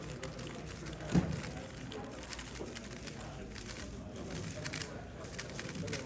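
Gan 13 Maglev 3x3 speedcube turned rapidly during a solve: a fast run of small clicks and rattles, with one dull thump about a second in.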